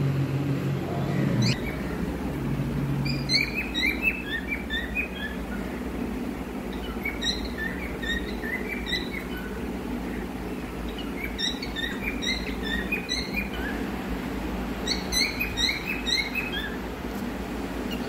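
Caged cockatiels chirping: quick runs of short, high chirps in bouts every few seconds, over a steady low hum.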